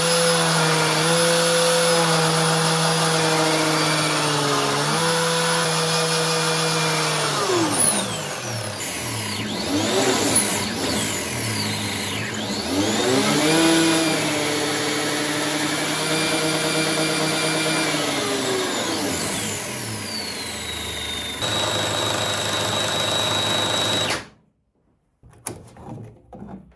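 Small DC motor whining as it drives a belt-coupled 3D-printed ABS clutch with a rubber friction plate under load. The pitch dips a little and then swoops down and up for several seconds as the clutch takes up and slips. The whine stops abruptly about 24 seconds in, followed by a few faint handling clicks.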